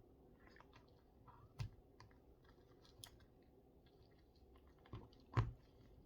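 A person chewing food with small wet mouth clicks, close to the microphone. A few sharp knocks break in, the loudest a little before the end.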